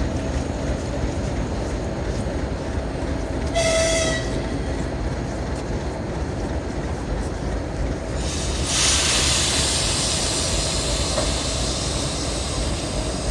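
3M62U diesel locomotive rumbling steadily, with one short horn blast about a third of the way in. Past the halfway point a loud hiss of released air starts and slowly dies down.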